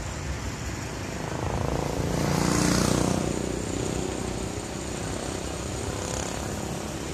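Steady road traffic, with one vehicle passing close by and growing loudest about two to three seconds in before fading.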